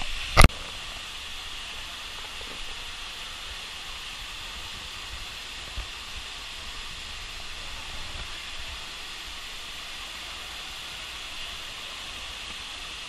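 Steady, even rush of a waterfall, with one sharp click about half a second in.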